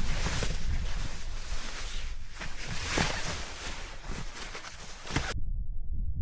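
Wind buffeting the microphone outdoors, with a heavy rumble and short crunching knocks like footsteps on rough ground. About five seconds in, the hiss cuts off suddenly and only a dull low rumble is left.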